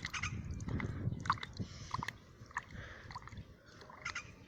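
Goose dabbling its bill in a shallow puddle: wet slurping and sloshing with quick irregular clicks of the bill snapping at the water.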